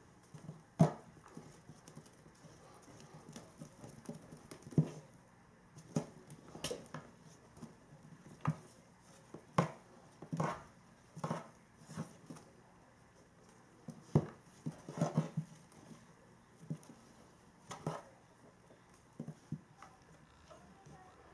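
A Norwegian Forest Cat's paws thumping and pattering on a wooden floor as it pounces and scrambles after a ribbon toy: irregular sharp knocks, some single, some in quick clusters.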